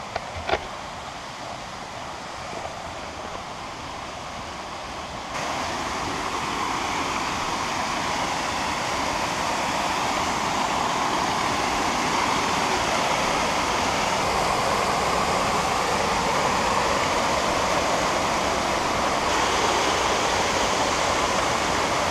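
Steady rush of a waterfall and its creek, jumping louder about five seconds in as the falls come into view. There is a single short knock near the start.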